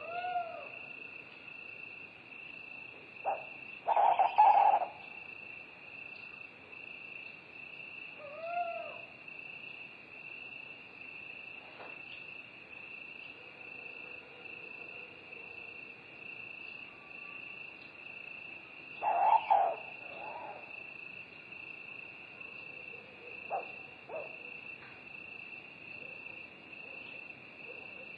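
Night forest ambience: a steady, high-pitched chorus of crickets, with an owl hooting now and then, loudest a few seconds in and again about two-thirds of the way through.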